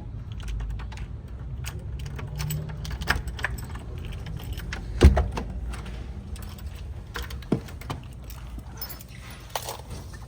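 A bunch of keys jangling and clicking as one is sorted out and tried, over a low steady rumble, with a heavy clunk about five seconds in.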